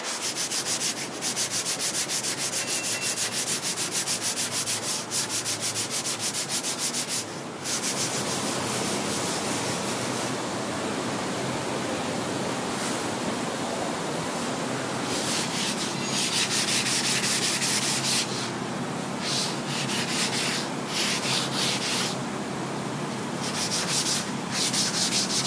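A sanding block is being rubbed by hand over a cured fiberglass headliner mold in quick, even back-and-forth strokes, in runs with short pauses. This is block-sanding over a guide coat to knock down the resin nibs where the fiberglass seeped through.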